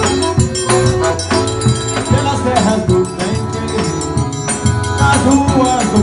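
Forró trio playing an instrumental passage: accordion melody over a steady rhythm of zabumba bass drum and triangle.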